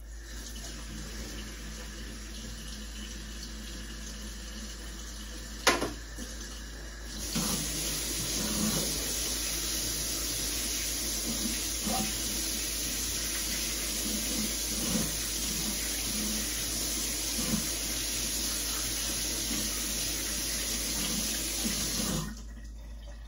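Kitchen faucet running into the sink while a spatula is washed by hand, with small knocks of utensils and one sharp knock about six seconds in. The flow gets stronger about seven seconds in, and the tap is shut off shortly before the end.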